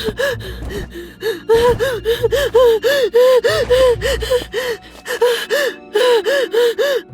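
A girl panting and gasping hard with her voice, in quick, rising-and-falling breaths, about three or four a second, with a brief break near the end.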